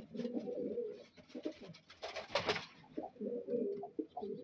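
Fancy pigeons cooing, several low coos overlapping throughout, with a brief rustling noise about two seconds in.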